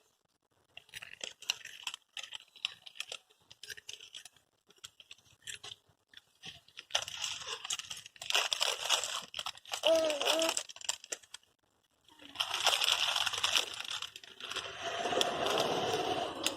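Crinkling and crunching of a biscuit packet and biscuits: scattered faint crackles at first, then two longer stretches of rustling and crunching. A brief voice-like call comes about ten seconds in.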